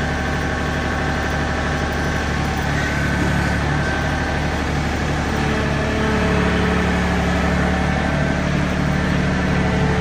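John Deere compact loader tractor's engine running steadily, then picking up about six seconds in as it takes the load of dragging a brush hog chained to its loader bucket.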